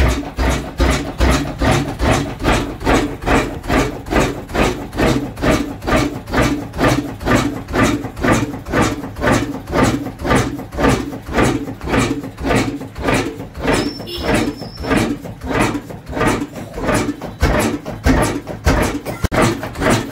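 Old Ruston single-cylinder horizontal diesel engine running steadily, with an even, slow, repeating beat.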